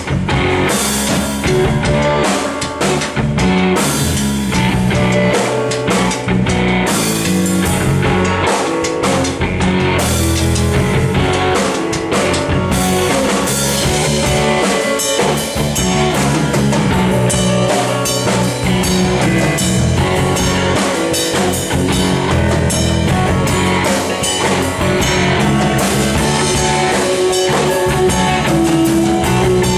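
Live rock band playing an instrumental stretch, with drum kit and guitar.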